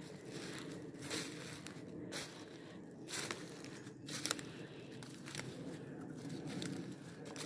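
Footsteps crunching through dry fallen leaves on a forest floor, about one step a second, over a steady rustle of leaf litter.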